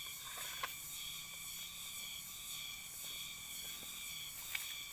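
Steady high-pitched insect chorus running on without a break, with two faint clicks, one about half a second in and one near the end.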